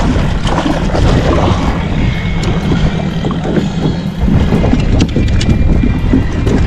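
Steady wind rumble buffeting the microphone, with a few sharp knocks and rattles about five seconds in as a landing net holding a fish is brought into an aluminum boat.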